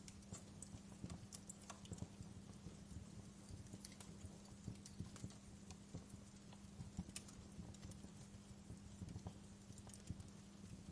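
Wood fire in a fireplace crackling: irregular small pops and snaps over a soft hiss, with a steady low hum underneath.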